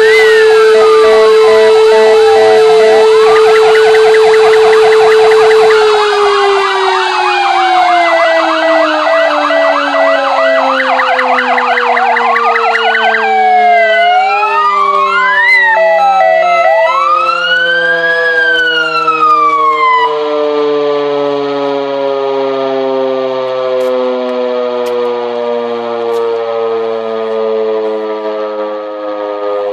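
Several fire engine sirens wailing and alternating two-tone over a loud, steady motor-driven warning siren, sounded together for the 'W' Hour commemoration of the Warsaw Uprising. About six seconds in, the warning siren starts winding down, its pitch falling slowly. The vehicle sirens cut off about twenty seconds in, leaving the falling wind-down.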